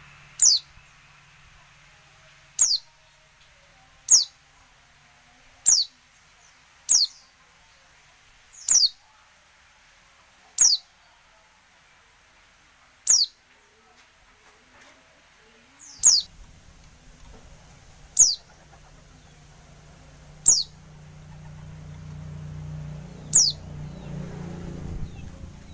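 Female pleci (white-eye) giving short, high, downslurred call notes, about a dozen of them spaced one every couple of seconds; this is the call used to provoke male pleci into singing. A faint low hum comes in about two-thirds of the way through and grows toward the end.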